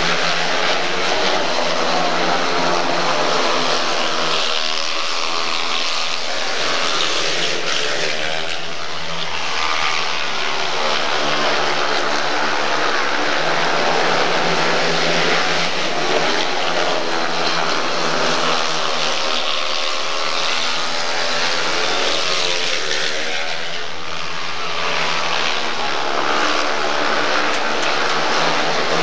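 Speedway bikes racing: several 500cc single-cylinder methanol-fuelled speedway engines running hard together, their pitch swelling and falling again and again as the bikes pass round the track.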